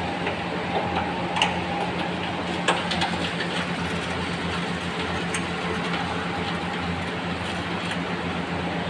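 Steady low machine hum with a few light clicks and knocks.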